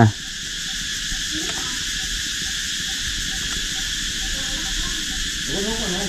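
Steady high-pitched chirring of insects, an even continuous drone with no breaks. Faint voices are heard low underneath near the end.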